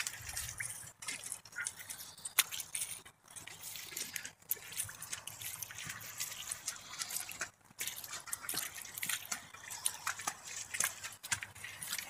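Hooves and feet squelching in wet mud: an irregular run of short wet clicks and sucking sounds.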